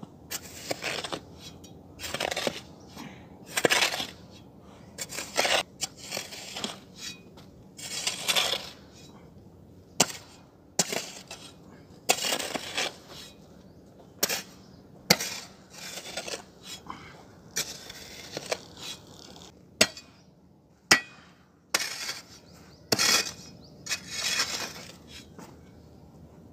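Steel hoe blade scraping and chopping into loose soil and gravel on a concrete road, a stroke every second or two, with a few sharp metallic clinks where the blade strikes the concrete.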